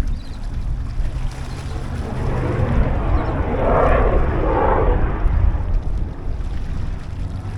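Strong wind buffeting the microphone with a steady low rumble. In the middle a rushing noise swells up and dies away over about three seconds.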